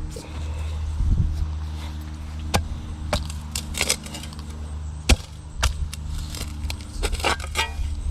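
A shovel striking and scraping into soil and roots in a post hole, several sharp separate strikes with a quick cluster near the end, over a steady low engine hum.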